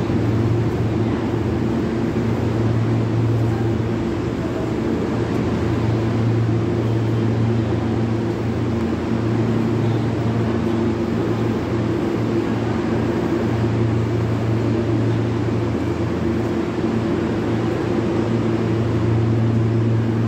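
New York City subway train standing in the station, its onboard equipment giving a steady hum with a low drone, over a noisy background.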